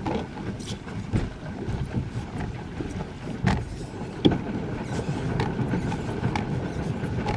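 Wind rumbling on the microphone and water sloshing against a small plastic boat's hull as it moves on the lake, with a few sharp knocks scattered through.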